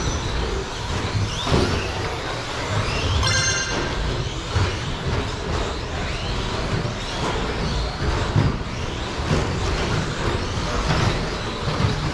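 Several 1/12-scale electric RC short-course trucks racing on a carpet track, their motors whining up and down with the throttle. A short beep about three seconds in.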